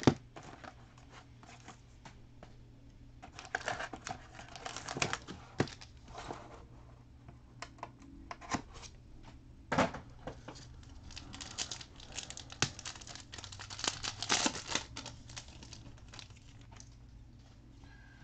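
Foil trading-card pack wrappers crinkling and tearing as packs are handled and ripped open, in scattered rustling bursts with a few sharp clicks.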